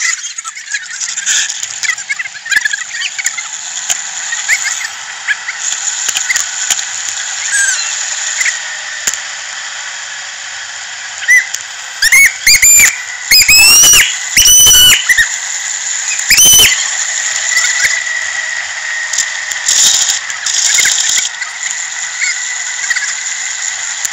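Steady hiss of air and road noise picked up by a bicycle-mounted camera while riding. About halfway through comes a run of half a dozen loud, short, high-pitched squeals that rise in pitch.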